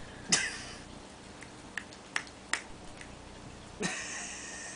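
A small dog licking peanut butter off its mouth: a few quiet, separate wet smacking clicks, then a short hissing breath near the end.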